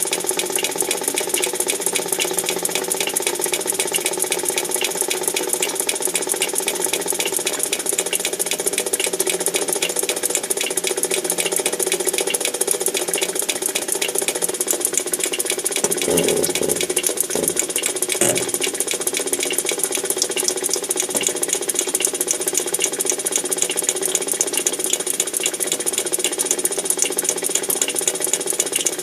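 Steady, fast mechanical rattling over a constant hum, as from a running machine or pump, with a brief lower thumping disturbance partway through. The uploader presents it as the sound of underground tunnel digging.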